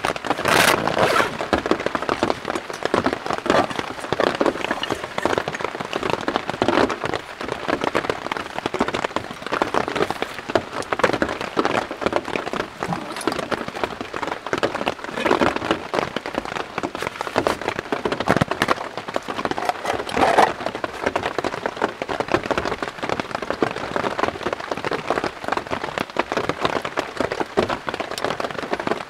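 Steady rain pattering on a tent's fabric fly, heard from inside the tent, as a dense crackle of drops with now and then a louder knock.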